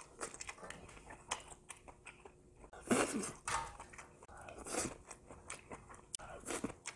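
Close-up chewing and mouth sounds of someone eating fried rice, with a wooden spoon scraping rice across a flat stainless steel pan. The sounds come as short clicks and scrapes, with louder moments about three and five seconds in.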